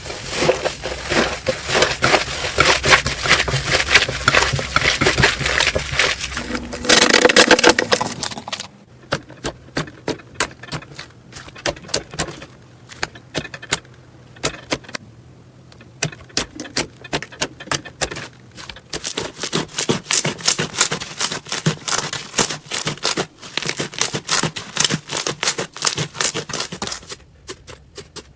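Slime being squeezed and pressed by hand, giving off crackling, popping clicks as air pockets burst. The clicks come thick at first, with a louder squelch about seven seconds in, thin out for a stretch, then come thick again.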